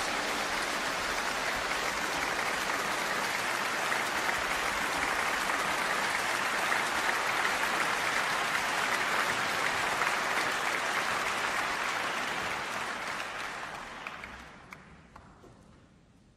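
Large concert-hall audience applauding steadily, then dying away over a few seconds near the end, with a few last scattered claps.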